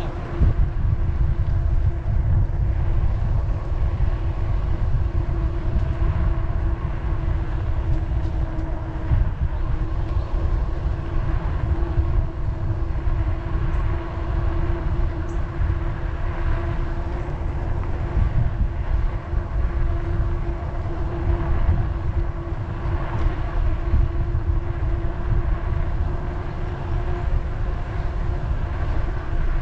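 Wind buffeting the microphone and road rumble from a moving bicycle, with a steady whine held at one pitch underneath.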